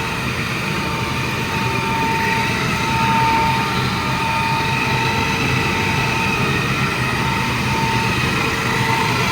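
Electric car polishing machine running steadily: a constant machine hum with a steady whine.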